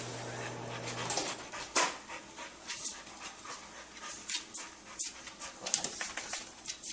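Small white fluffy dog panting in short, quick breaths, about three a second. A low steady hum cuts off about a second in.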